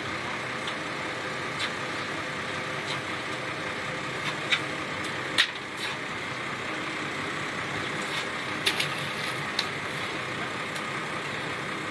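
Lobster boat's engine running steadily, with scattered sharp clicks and knocks from gear being handled on deck.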